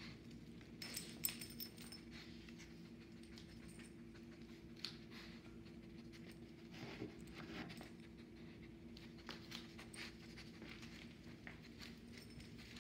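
Faint scattered clicks and pattering of beagles' claws on a tile floor as they move about sniffing, over a steady low hum.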